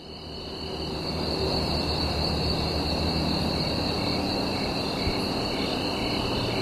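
Song intro fading in: a steady high chirring like a chorus of crickets over a low sustained drone, with faint short blips about twice a second from the middle on.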